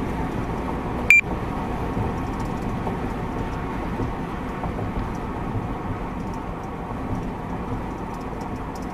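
Steady road and engine noise inside a car cruising at highway speed. One short high electronic beep sounds about a second in.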